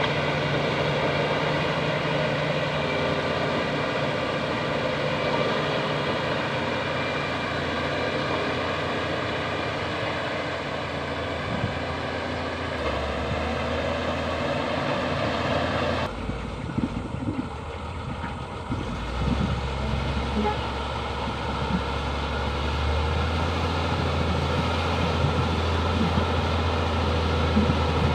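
Bulldozer's diesel engine running steadily under work. Just past halfway the engine sound changes suddenly, the high part falls away, and a scatter of short knocks and clanks follows as the machine works on, before the low engine note steadies again.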